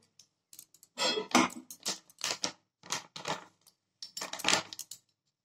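A packet of milk powder rustling in several short, irregular bursts as it is shaken and tipped into a steel saucepan of hot water, with light clatter against the pan.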